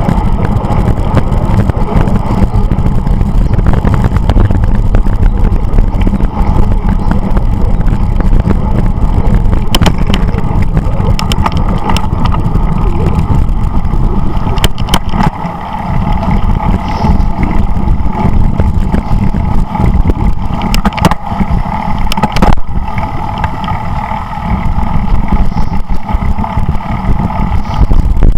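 Wind rushing and buffeting over a bicycle-mounted camera's microphone while riding on the road, with tyre and road noise and scattered knocks from bumps.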